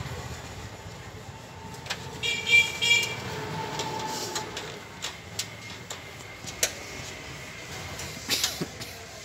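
Three quick toots of a vehicle horn over a steady background hum, with scattered small clicks and knocks.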